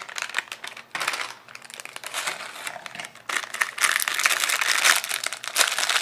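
Plastic Oreo cookie wrapper crinkling as it is handled and the cookies are shaken out of it into a plastic food-processor bowl. It gets louder and busier about halfway through.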